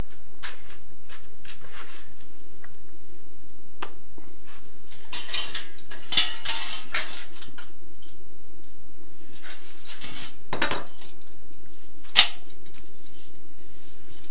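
Tin snips cutting a thin steel drywall profile by hand: scattered snips and clicks with the light metal rattling. There is a denser stretch of cutting and scraping around the middle, and two sharp snaps near the end.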